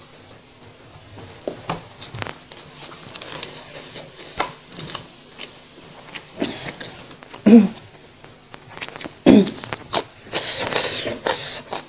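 Close-up eating sounds of raw vegetables and young jengkol: chewing and crunching with sharp crisp clicks. A longer crackling, rustling tear comes near the end as food is pulled apart by hand.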